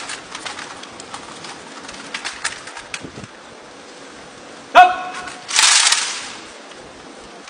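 Kalashnikov rifle drill by a squad: a quick run of clicks and clatter from rifles and boots for the first few seconds, then a single short shouted command about five seconds in, the loudest sound, followed at once by a brief burst of rushing noise.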